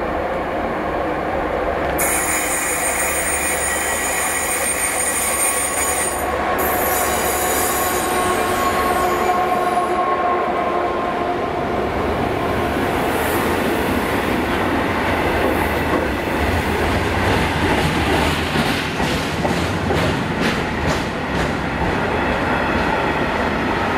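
Class 66 diesel freight locomotive running past, followed by its train of steel freight wagons rolling by with the wheels rumbling on the rails. A quick run of sharp clicks comes late on as wheels pass over a rail joint.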